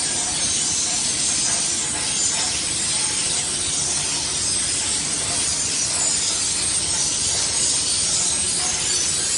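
Machinery of an automatic flatbread production line running: a constant, even rushing noise, mostly high-pitched, with no pauses or strokes.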